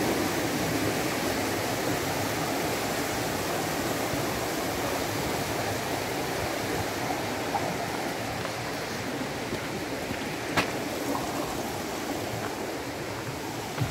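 River water rushing through the stone basins of a fish pass: a steady rush that fades a little toward the end. A single sharp click about ten and a half seconds in.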